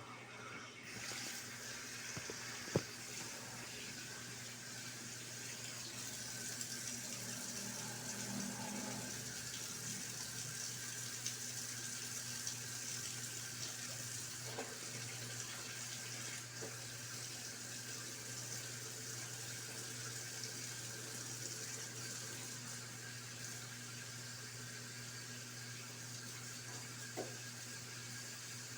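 Brastemp Clean 7 kg top-loading washing machine taking in water for its rinse, heard through the closed lid: a steady rush of water that starts about a second in, over a low steady hum.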